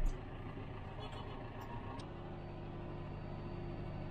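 John Deere tractor engine running steadily, heard from inside the cab as a low hum; its note changes slightly about two seconds in.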